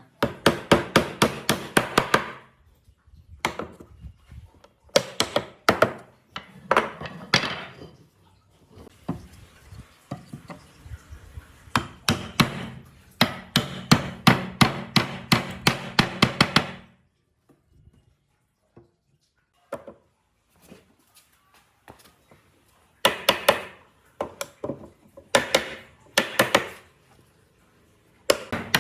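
Rapid hammer blows on wood, about five a second, in bursts of a few seconds with pauses between.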